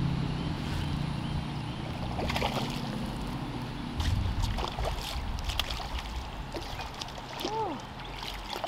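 Splashing and scattered clicks as a hooked trout is reeled in to the riverbank and thrashes at the surface. A short bird call sounds near the end.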